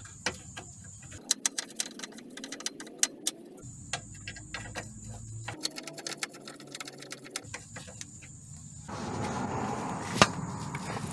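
Ratchet wrench clicking in quick runs with metallic clinks as a 17 mm nut is run onto the front motor mount stud by hand; the clicking thins out about halfway through, and a single sharp click comes near the end.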